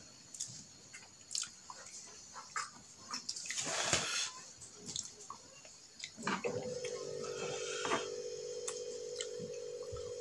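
Close-up eating sounds: a spoon clicking against a bowl, with chewing and a longer slurp of bakso soup about four seconds in. About six and a half seconds in, a steady hum starts and keeps going.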